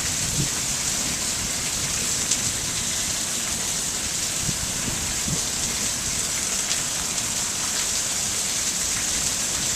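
Heavy monsoon rain pouring down and splattering on a patio, a steady even hiss with a few faint taps of drops.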